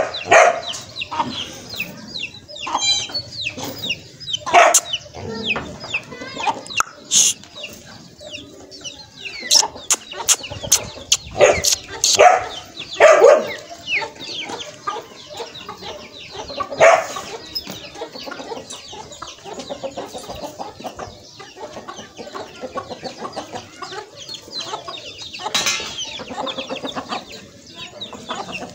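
Chickens clucking, with a rooster crowing. Several louder sharp calls stand out, mostly in the first half.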